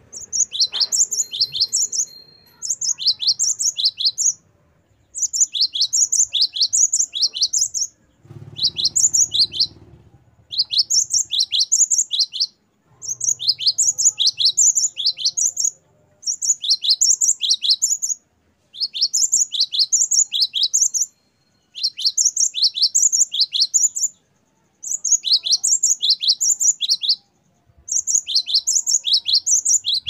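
Cinereous tit (gelatik batu, the Asian grey form of the great tit) singing: a fast ringing song of the same high, falling note repeated over and over. It comes in phrases of about two seconds with short pauses between, about a dozen phrases in all.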